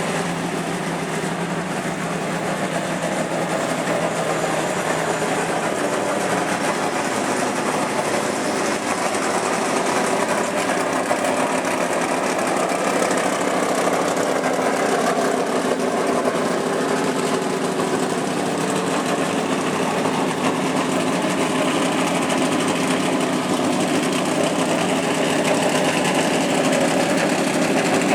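An engine idling steadily, growing slightly louder over the stretch.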